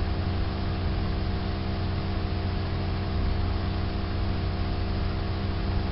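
Steady, unchanging low machine-like hum with a layer of hiss, the constant background noise under the recording during a silent reading pause.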